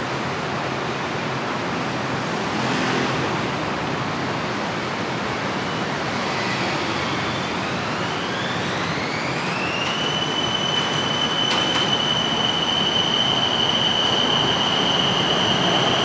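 BTS Skytrain electric train running with a steady rumble. About six seconds in, a high whine starts that rises in pitch for some four seconds, then holds one steady high note. There is a single sharp click partway through.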